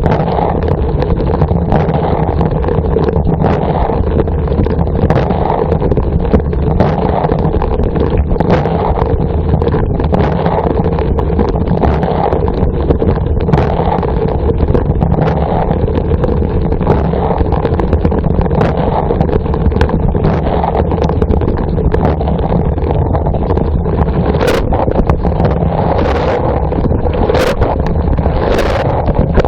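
Dishwasher running its wash cycle, heard from inside the tub: a steady pump hum under a constant rush of spraying water, with a few sharp knocks near the end.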